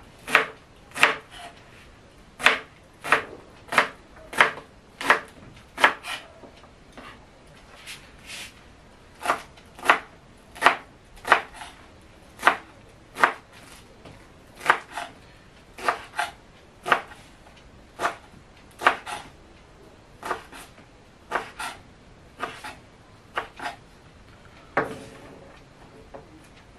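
Kitchen knife chopping radish greens on a wooden cutting board: a series of sharp knocks at about one to two a second, with a few brief pauses.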